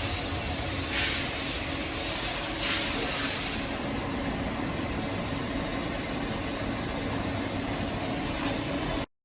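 STAMA MC 530 vertical machining centre running with a steady mechanical hum and hiss, broken by short hissing bursts about a second in and again near three seconds. The sound cuts off suddenly near the end.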